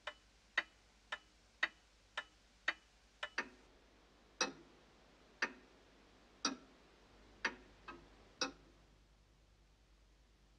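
Antique clocks ticking. A quick tick about twice a second gives way, a little over three seconds in, to a louder, fuller tick about once a second, which stops about eight and a half seconds in.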